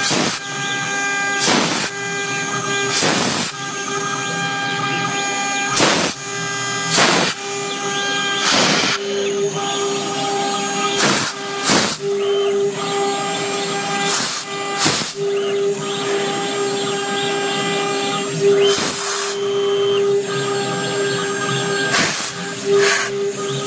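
CNC router's 1.5 kW air-cooled spindle whining steadily at high speed, with short harsh bursts every second or two as the bit cuts into the board.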